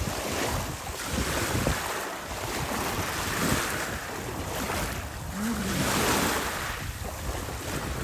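Small sea waves washing in at the shoreline, swelling and ebbing every couple of seconds, with wind rumbling on the microphone.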